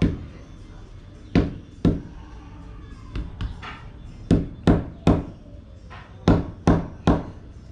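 Grilled, charred hide being pounded on a round wooden chopping block: about nine sharp knocks, mostly in quick groups of two or three, with a couple of softer taps between. The pounding knocks the blackened, charred layer off the hide.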